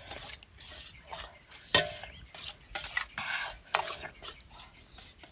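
Metal spoon stirring a wet fish-paste mixture in a stainless steel bowl: a run of short scraping, squelching strokes about two a second, with one sharp clink of spoon on bowl a little under two seconds in.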